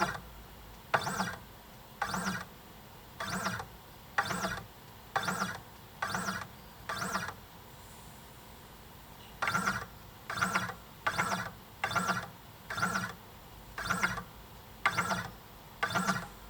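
CNC 3018's X-axis stepper motor and lead screw making short buzzing moves, sixteen in all, about one a second, with a pause of about two seconds halfway: the axis being jogged forward and back in small steps for a repeatability test.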